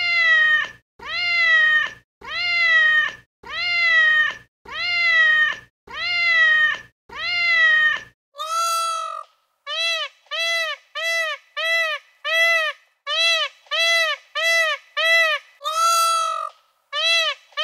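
Repeated high-pitched mewing animal calls. First come seven long calls with falling pitch, about one a second. Then comes a quicker run of short calls, two or three a second, with one longer call near the end.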